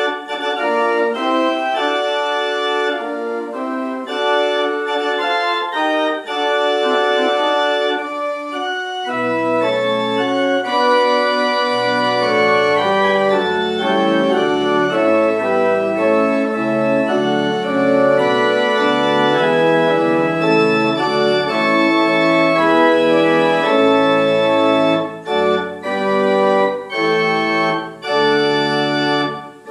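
Organ music playing slow sustained chords. Deep bass notes join about nine seconds in, and near the end the chords are played in shorter, separated strokes.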